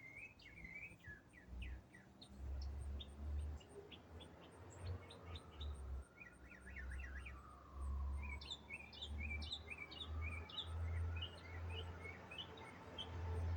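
A songbird singing a long, varied song of quick chirps, trills and twittering phrases without pause. A low rumble comes and goes underneath and is louder than the song at its peaks.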